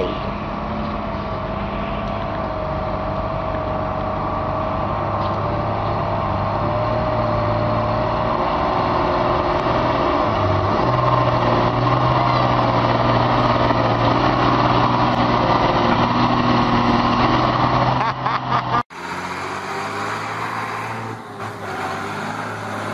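A heavy truck's diesel engine runs with a steady low drone that grows slightly louder. About nineteen seconds in, the sound cuts off abruptly and is replaced by another truck engine's drone.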